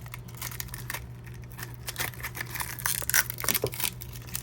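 Scattered light clicks and rustling of small plastic toy fridge parts being handled and pushed together, over a steady low hum.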